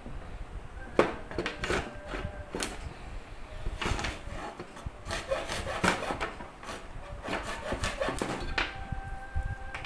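Hand hacksaw cutting through a thin PVC pipe ring in repeated back-and-forth rasping strokes.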